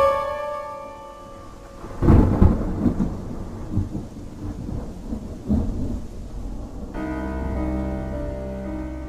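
A chord struck at the start rings out, then thunder rumbles with rain from about two seconds in, a sound effect within the added music track. Near the end, sustained music chords take over again.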